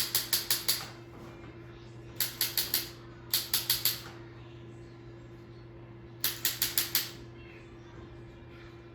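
Activator chiropractic adjusting instrument firing in four quick bursts of sharp clicks, about five or six clicks per burst, as it delivers adjustment thrusts along a child's spine. A faint steady low hum runs underneath.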